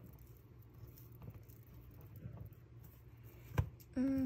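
Faint rustling and small taps of fingers handling and pressing paper stickers onto a planner page, with one sharp click about three and a half seconds in and a brief pitched tone just before the end.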